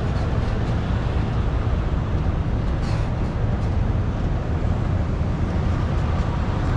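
A diesel truck engine idling, a steady low rumble.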